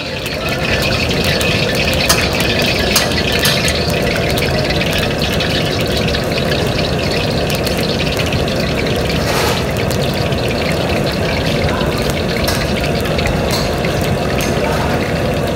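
Samosas deep-frying in hot oil in a steel wok: a steady sizzle with scattered crackles and pops.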